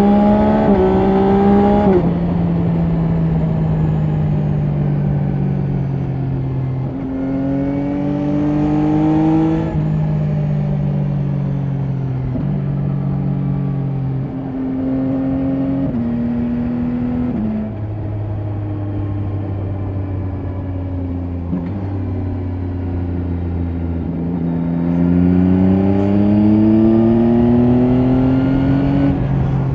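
2024 Yamaha Tracer 9 GT's 890 cc inline-three on the stock exhaust, heard from the rider's seat. The engine climbs in revs, then drops back through several abrupt steps in pitch as gears change, runs low and steady for several seconds, and pulls up in revs again near the end.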